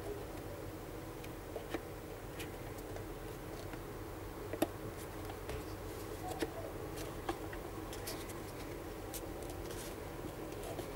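Scattered light clicks and taps from the parts of a Razer Base Station Chroma headset stand as they are handled and the upright arm is fitted into the base. The sharpest click comes about four and a half seconds in, over a steady low hum.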